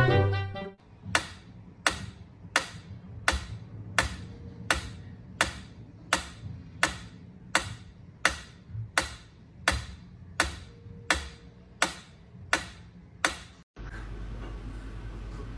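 Mechanical pendulum metronome ticking at a steady tempo, about three ticks every two seconds. The ticking stops abruptly near the end.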